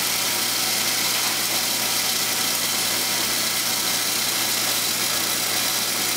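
Forge air blower running steadily: an even rush of air over a low motor hum.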